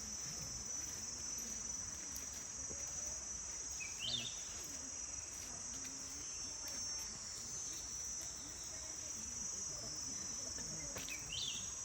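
Steady, high-pitched chorus of forest insects, with a short rising chirp about four seconds in and again near the end.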